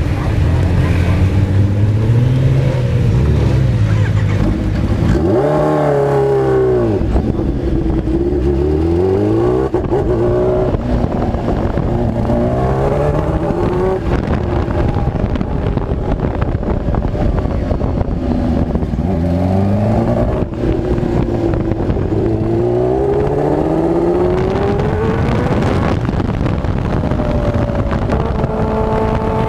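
Kawasaki Ninja H2R's supercharged inline-four engine heard from onboard the bike, its pitch rising and falling again and again as it accelerates out of corners and slows for the next, with a sharp surge and drop in revs about six seconds in.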